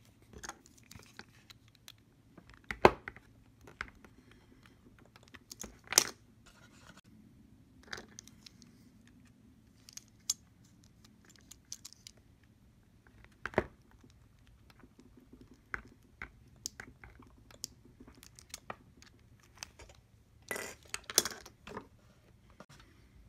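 Sporadic clicks, taps and scrapes of a utility knife cutting a notch into a plastic soldering-iron housing while it is handled, with a few sharper knocks, the loudest about three and six seconds in, and a short burst of clatter near the end.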